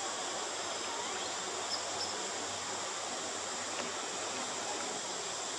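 Steady forest ambience: a constant high-pitched insect drone over an even hiss, with two brief faint high chirps about two seconds in.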